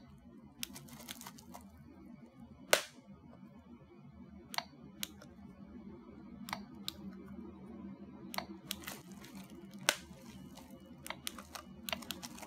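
Puchi Puchi infinite bubble wrap keychain toy being pressed button by button: each press gives a click and a recorded bubble-wrap pop from its tiny speaker. A dozen or so pops at uneven intervals, the loudest about three seconds in.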